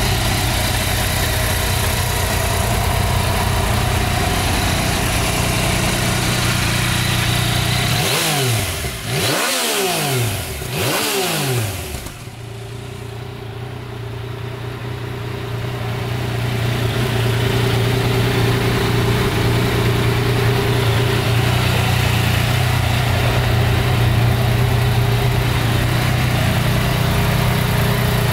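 Yamaha Tracer 900 GT's 847 cc inline three-cylinder engine idling steadily, revved twice about a third of the way through, then dropping back to idle.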